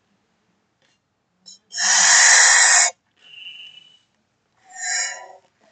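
A 260 twisting balloon being inflated: a loud rush of air lasting about a second, then a fainter hiss and a short squeaky whistle near the end.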